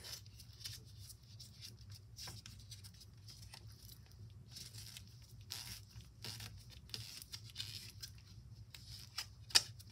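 Paper strip rustling and crinkling faintly as it is wound tightly around a pencil and worked into a spiral, with scattered small clicks and one sharp tap near the end.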